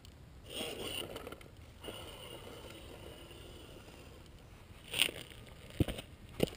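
Gmade Sawback scale RC crawler's brushed motor and gear drivetrain whining at low speed as it crawls over rock, with a faint scraping of tyres on stone. Three sharp knocks near the end.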